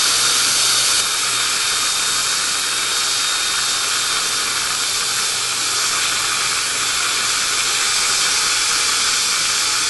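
High-speed dental handpiece running steadily with its bur on the composite restoration: a constant hiss of air and water spray with a faint high whine, a little louder for the first second.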